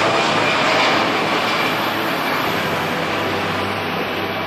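Twin-engine jet airliner climbing away just after take-off, its engines at take-off power: a steady jet roar that slowly fades as the aircraft draws away.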